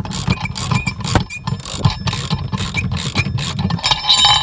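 Repeated metallic clicks and clanks of tire-changing tools being worked, over a steady low rumble that stops near the end.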